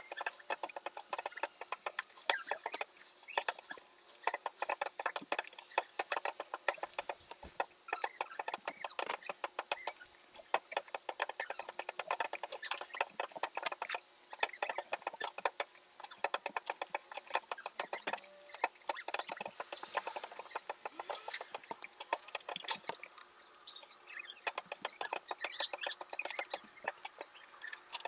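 Tape being peeled off a freshly painted crankbait body, with a hobby knife tip picking at the tape edges: a dense, continuous run of small crackles and scratchy clicks.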